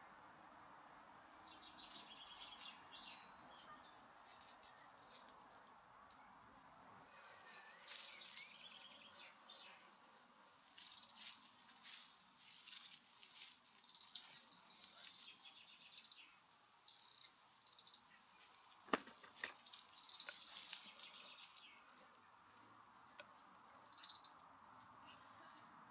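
Small birds chirping in short, repeated high bursts, with one sharp snap about two-thirds of the way through.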